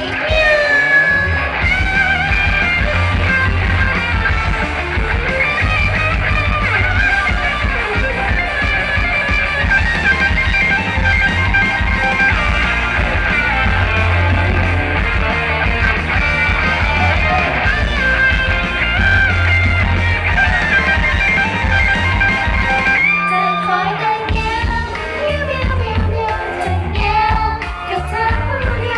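Upbeat idol pop song with a steady beat and female singing, played loud over the stage sound system; the beat drops out briefly about 23 seconds in and the singing carries on.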